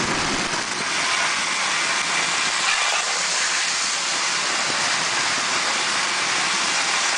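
Toy electric train running along tinplate three-rail track close to the microphone: a steady rushing noise of motor, gears and wheels on the rails.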